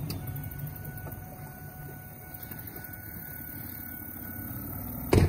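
Small outboard motor on a jon boat running steadily at a distance, a low hum with a thin, steady high whine over it. A sharp thump sounds about five seconds in.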